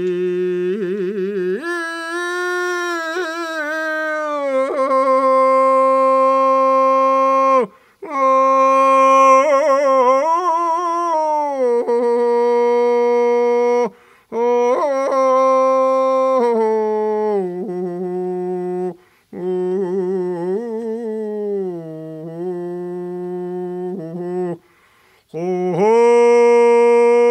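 An elderly man singing a Mongolian folk song unaccompanied, in long held notes with vibrato and ornamented turns. He breaks off briefly for breath four times.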